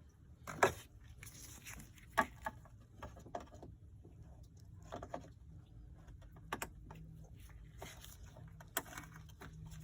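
Scattered clicks and knocks of hand work on engine-bay parts, such as plastic clips and hoses being pried loose, over a low steady hum; the sharpest knocks come about half a second and two seconds in.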